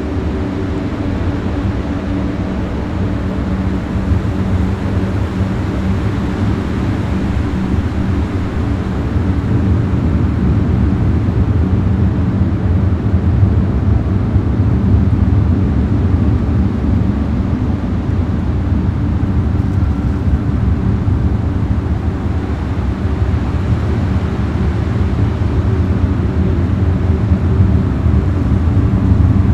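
A steady, low rumbling drone with several held low tones beneath a noisy hiss, slowly growing louder.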